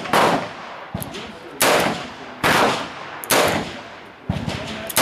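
M1895 Nagant revolver fired shot after shot with 7.62x38R surplus ammunition, a loud report with a ringing tail about once a second. Fainter reports fall in between.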